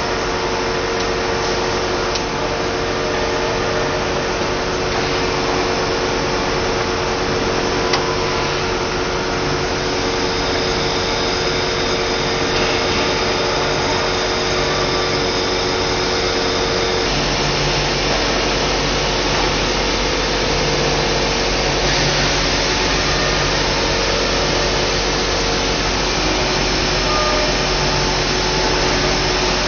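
SRB100A extrusion blow moulding machine running: a steady hum with two held tones over a high hiss. There is a small click about eight seconds in, and the sound changes about seventeen seconds in, when one of the tones stops and the low end shifts.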